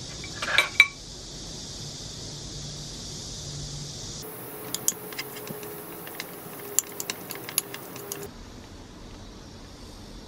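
Metal spoon clinking and scraping against a ceramic bowl as rice and toppings are mixed: a short cluster of clinks just after the start, then a run of quick, sharp clicks from about four to eight seconds in, over a steady hiss.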